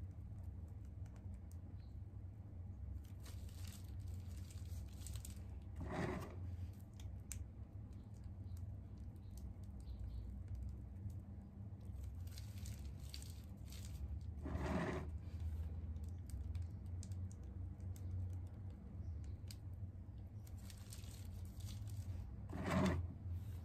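Plastic piping bag of whipped cream crinkling and rustling as it is squeezed and twisted to pipe frosting rosettes, with three brief louder rustles about eight seconds apart, over a steady low hum.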